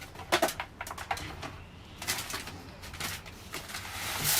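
A few light clicks and knocks of a plastic bird feeder being handled, then from about halfway a steady rustling hiss as birdseed is poured into it.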